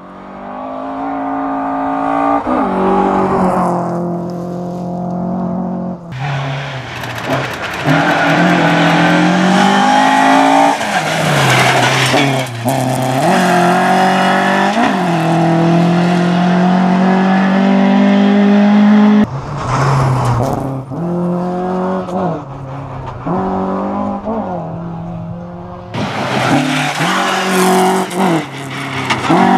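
Rally cars at full throttle on a gravel special stage, heard in several short cuts. The engines rev up and drop back again and again through gear changes.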